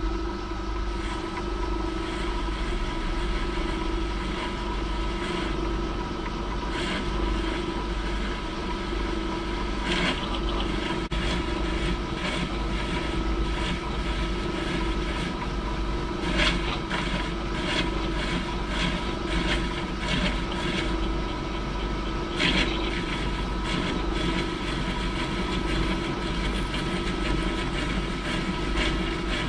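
Myford metal lathe running steadily with a constant motor-and-gear hum, while a parting-off tool is fed in by hand to part off a thin shim. The cut adds an uneven scraping, with a few louder bursts of cutting noise spread through.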